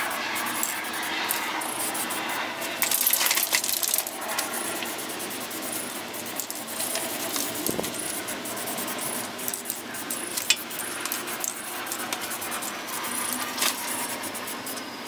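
Aerosol spray-paint can being shaken, the mixing ball rattling inside it, alternating with the hiss of spraying. The rattle comes in many quick clicks, with a louder stretch of hiss about three seconds in.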